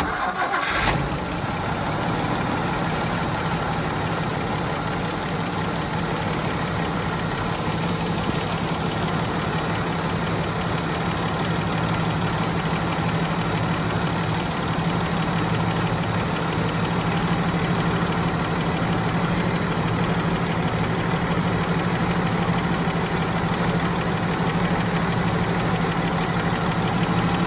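Toyota Land Cruiser FJ45's carbureted inline-six engine fires up and settles into a steady idle. It runs smooth, with no misfire, on freshly cleaned spark plugs.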